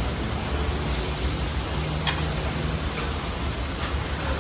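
Chunks of meat frying in ghee in a large steel pan, a steady sizzle, with the ladle scraping and knocking against the metal a few times as the meat is stirred.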